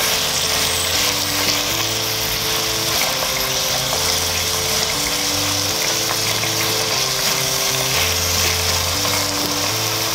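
Marinated pork strips sizzling steadily as they sauté in oil in a pot. Soft background music of held notes, changing pitch about once a second, plays under the sizzle.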